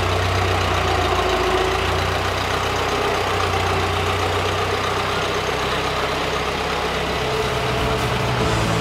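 Engine of a 1920 Ford Model T fire truck, a four-cylinder side-valve, running steadily at low speed as the truck drives off slowly.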